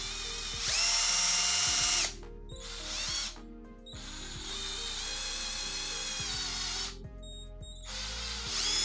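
Aquaracer cordless drill-driver's motor whining as it spins a flexible shaft extension, in several short runs of one to three seconds. The whine rises in pitch at the start of each run.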